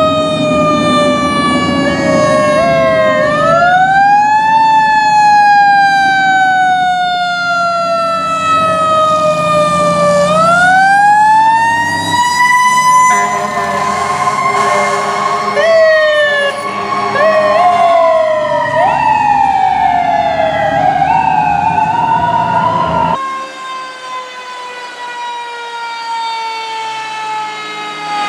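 Fire truck sirens wailing: a pitched wail that climbs quickly and sinks slowly over several seconds, repeating, with shorter, faster rising sweeps layered over it in the second half. Near the end it switches to a quieter siren tone falling slowly.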